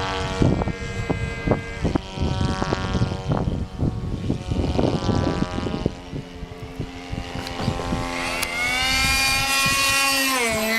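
Engine of a radio-controlled T-28 Trojan model plane in flight, a steady tone that grows louder in the second half, then drops sharply in pitch near the end. Wind buffets the microphone in the first half.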